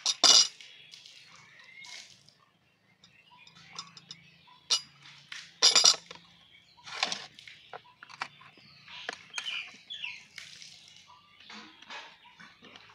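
Plastic knife cutting through kalakand on an aluminium tray: scattered scrapes and sharp taps of the blade against the metal, the loudest just after the start and about six seconds in. Birds chirp faintly in the background.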